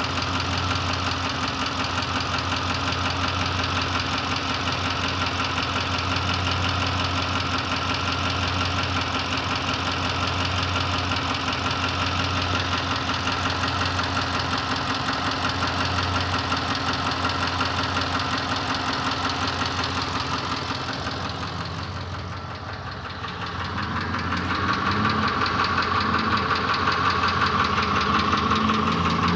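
Ford Triton 5.4 three-valve V8 engine running at idle with a knock, a newly appeared fault whose cause is unknown. The sound dips in loudness about two-thirds of the way through, then comes back louder with a rising pitch near the end.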